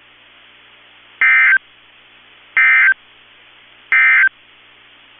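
NOAA Weather Radio Emergency Alert System end-of-message data bursts: three short, identical buzzy digital tone bursts about 1.3 seconds apart, with faint radio hiss between them. They mark the end of the alert message.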